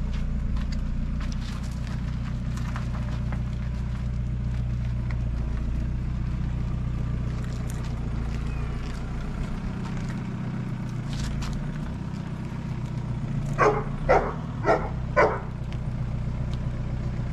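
A vehicle engine runs with a steady low hum. About two-thirds of the way in, a dog barks four times in quick succession.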